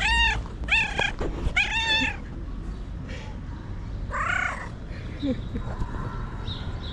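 A cat meowing: three quick meows in the first two seconds, each rising then falling in pitch, then one lower meow a little after four seconds in.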